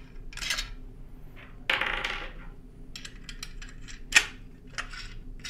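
Mimosa B5 mounting bracket and its bolts clinking and clicking as they are handled and fitted together: a run of small separate metal knocks and a short rattle, with one sharp click about four seconds in.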